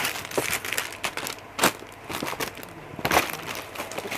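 Plastic garment packaging crinkling and rustling as a boxed suit is handled, with cardboard boxes knocking. Two sharper crackles stand out, about a second and a half apart.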